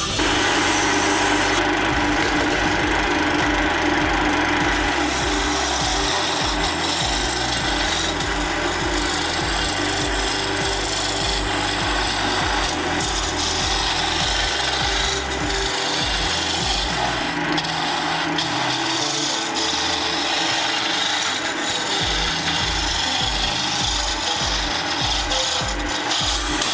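Wood being worked on a wood lathe: a tool cutting or abrading a spinning wooden blank, a continuous rasping that runs without a break.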